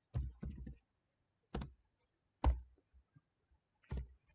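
A handful of separate computer keyboard keystrokes, irregularly spaced, as a word of code is typed out.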